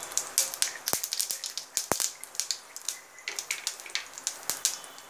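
Mustard seeds crackling and popping in hot oil as the tempering begins: a scatter of irregular sharp pops, with two louder ones about one and two seconds in.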